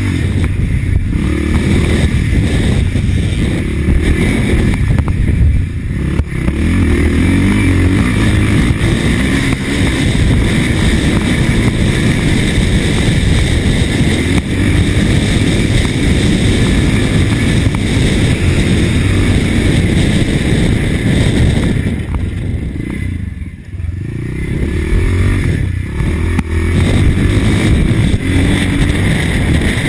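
Vintage Husqvarna TC 500 motocross bike's engine running hard as it is ridden, its revs rising and falling. The sound drops away briefly about three-quarters of the way through, then picks up again.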